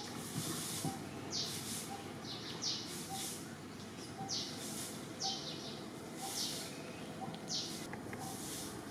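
Outdoor wildlife ambience: short, high, raspy chirps repeating roughly once a second over a steady background hiss.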